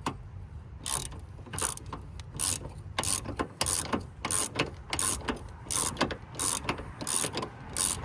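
Hand ratchet with a socket on the dog-bone bolt of a 3800 V6's top motor mount, clicking in short runs on each back-swing as the bolt is worked loose, a stroke every half to three-quarters of a second.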